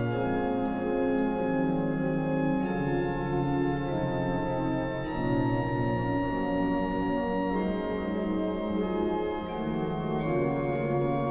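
Music of slow, sustained chords that change about every two and a half seconds.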